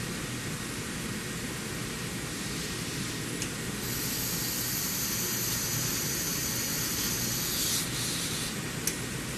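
TOS KUŘIM FRUQ gantry milling centre running with a steady mechanical noise. About four seconds in a high hiss starts, holds for about five seconds and stops, with a sharp click just before it starts and another just after it stops.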